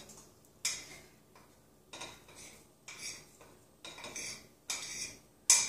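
A spoon scraping and clinking against a plate as grated garlic, ginger and the other sauce ingredients are pushed off it into a bowl of water: about six short, sharp strokes, roughly one a second.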